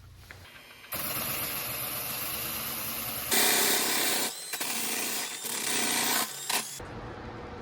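Power sander grinding on a surfboard's tail while shaping it, heard as several stretches of steady noise that start and stop abruptly. The loudest stretch begins about three seconds in.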